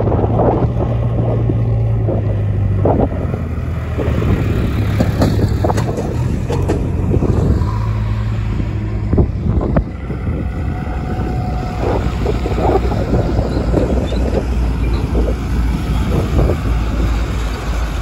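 Heavy diesel engine running steadily, with repeated short knocks and clatters over it; the engine note drops lower about ten seconds in.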